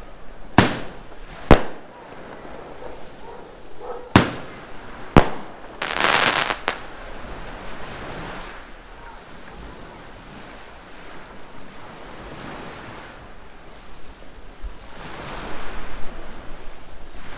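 Firecrackers going off: four sharp bangs in the first five seconds, then a hiss lasting about a second around six seconds in. After that comes a steady wash of sea surf.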